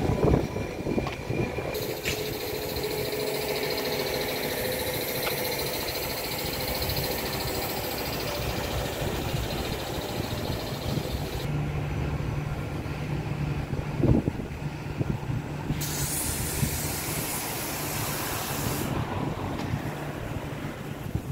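Steady outdoor street noise of vehicles and workshops, with a low engine-like hum through the middle and a single sharp knock partway through.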